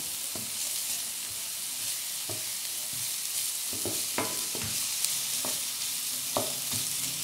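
Diced onion sizzling in hot oil in a frying pan, stirred with a wooden spatula that scrapes and taps against the pan several times. The onion is being sweated until translucent.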